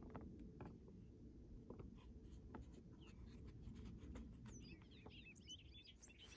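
Near silence: a faint low wind rumble with light clicks and scratches as a propeller is fitted by hand to a model plane's rubber motor. From about two-thirds of the way in, a bird chirps in quick high notes.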